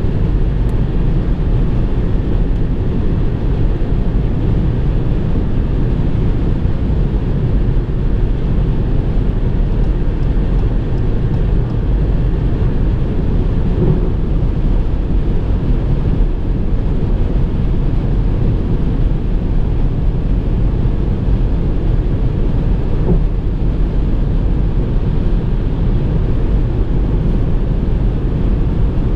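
Ford Fiesta 1.0 EcoBoost driving steadily at speed: an even, unbroken mix of tyre, wind and engine noise, heavy in the low end.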